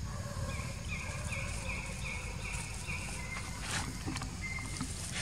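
An animal calling: a run of about six short, evenly spaced high notes, two or three a second, over a steady low rumble, with one sharp rustle or snap a little later.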